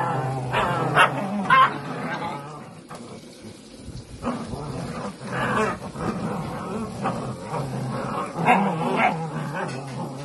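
Belgian Malinois puppies growling and yipping as they tug at a mop head together: many short high-pitched calls, briefly dying down about three seconds in.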